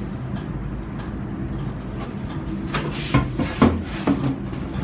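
A large stiff board being lifted off a whiteboard and set down: a few sharp knocks and scrapes about three to four seconds in, over a steady low hum.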